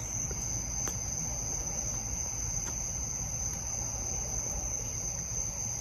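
Steady, continuous high-pitched trilling of crickets at night, over a low background rumble.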